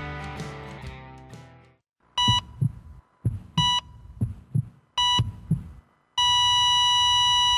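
The tail of an intro music track fading out, then a hospital heart-monitor sound effect: three beeps about a second and a half apart, each with a double heartbeat thump, then a long steady flatline tone from about six seconds in, the sign of a heart that has stopped.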